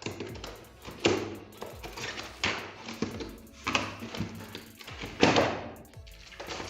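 Gaming keyboard's cardboard box and plastic packaging being handled and opened: a string of knocks and rustles, one every second or so.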